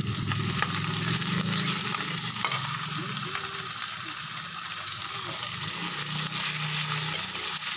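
Ground meat and garlic sizzling in a hot wok, with a spatula scraping and stirring it and clicking against the pan now and then.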